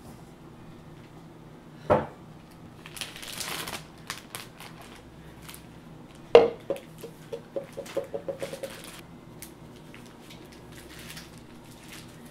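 Kitchen utensil knocking against a stainless steel mixing bowl, each knock ringing briefly. The loudest clangs come about two and about six seconds in, followed by a run of quick taps on the bowl, about five a second, while frosting is knocked off into a Ziploc bag. A plastic bag rustles briefly about three seconds in.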